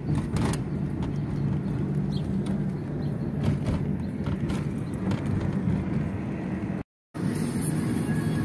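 Steady engine and road noise of a moving car, heard from inside the cabin, with a low hum and scattered light clicks. The sound drops out completely for a moment about seven seconds in.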